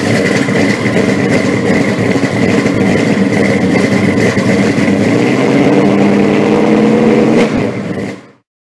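A car engine running loudly and steadily, cutting off suddenly near the end.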